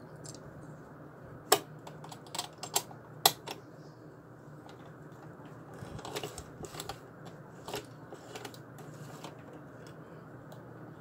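Metal clicks and taps as a bobbin case is fitted into a vintage sewing machine: a run of sharp clicks in the first few seconds, then lighter clicking around the middle.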